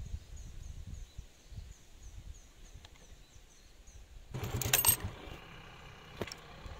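A low rumble with a small bird chirping repeatedly in the first second. About four and a half seconds in comes a loud, brief, clinking clatter. A vehicle engine then idles steadily with a single click soon after.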